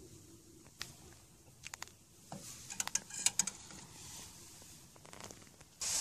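Plastic spork clicking and scraping against a steel pot and a plastic bowl as thick porridge is spooned out, a run of light taps with a louder scrape near the end.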